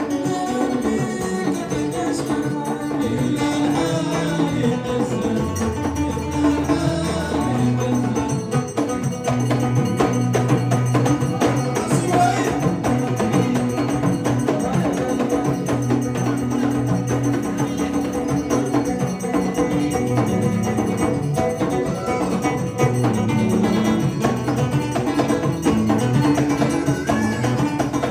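Live Amazigh folk music: a hand-held frame drum beating a steady rhythm under an electric guitar, with a man singing.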